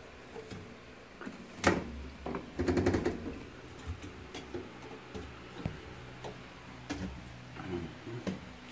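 Hands fitting a hose onto a washing machine: a sharp click a little under two seconds in, a short cluster of knocks around three seconds, then scattered light clicks, over a faint steady hum.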